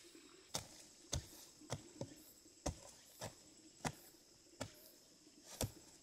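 A series of sharp chopping strikes, about ten in all, coming steadily every half second to second, as a hand tool hits repeatedly.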